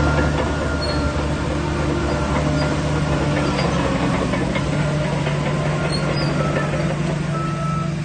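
Shantui DH17C3 Pro bulldozer's diesel engine running with a steady low drone.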